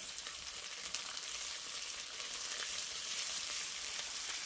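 Grated carrot and onion with ketchup frying in sunflower oil in a deep nonstick pan, stirred with a spatula: a steady, high crackling sizzle.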